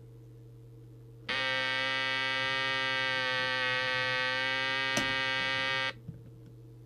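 Jesan KT002 CB walkie-talkie's audio stage giving out a steady, harsh buzzing racket that starts about a second in and cuts off suddenly near the end, with a single click shortly before it stops, over a steady low hum. The racket is audio instability, indicative of faulty electrolytic capacitors.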